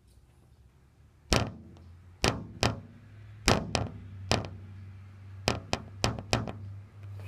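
A series of about ten sharp knocks or taps at uneven intervals, beginning a little over a second in.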